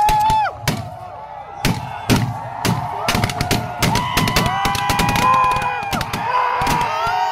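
A ragged volley of gunshots from a line of men firing guns into the air as a ceremonial salute: many sharp cracks in irregular succession, with long shouted cries rising and falling over them.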